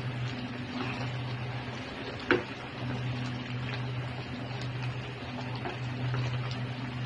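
Curry simmering and being stirred in a pot, over a steady low hum, with one sharp knock of the stirring utensil against the pot about two seconds in.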